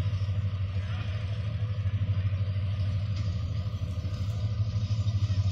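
Diesel-electric locomotive engine running with a steady, low, fast-pulsing throb as the train moves off slowly.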